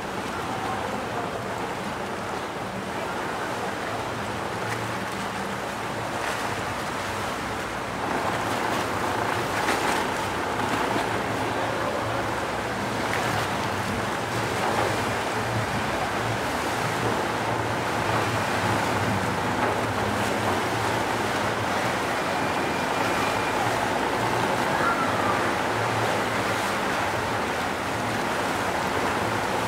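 A tour boat's engine runs steadily under water splashing and rushing along the hull, with wind buffeting the microphone. The sound gets louder about eight seconds in.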